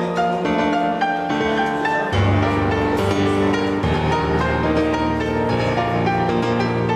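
Background music with held, steady notes; a deep bass line comes in about two seconds in.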